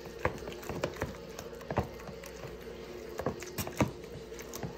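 Spoon stirring and mashing thick puppy mush in a plastic tub, knocking and scraping against the tub in irregular taps, several a second, over a faint steady hum.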